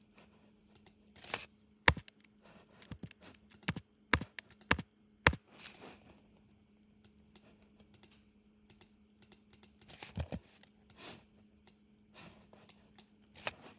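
Computer keyboard typing and mouse clicks: irregular sharp clicks in short clusters with pauses between them. A faint steady low hum runs underneath.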